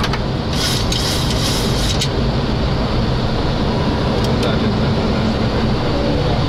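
Steady cockpit noise of a Boeing 737 climbing out in a go-around: engines at reduced go-around thrust, set by hand, and rushing airflow, with bursts of hiss in the first couple of seconds.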